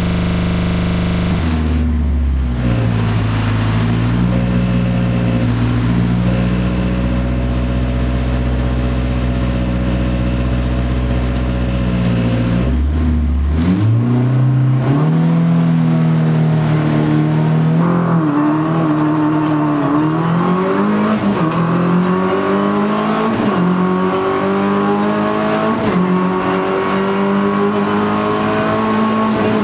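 Rally car's engine heard from inside the cockpit, held at steady revs on the start line, then launched about halfway through and accelerated hard up through the gears, the pitch climbing and dropping at each of several upshifts.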